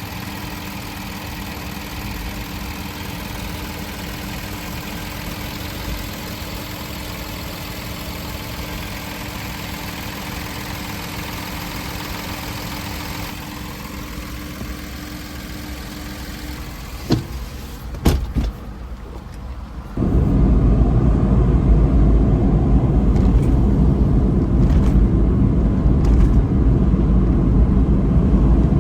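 A car engine runs with a steady drone and a held hum, then a few sharp knocks come in quick succession. After that a much louder, low, noisy rumble takes over.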